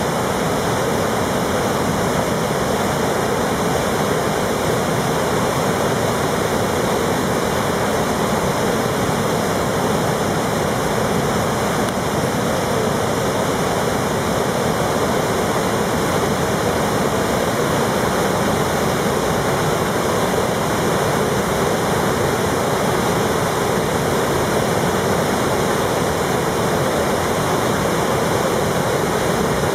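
Steady rushing roar of a muddy river in flood pouring through large standing waves and rapids.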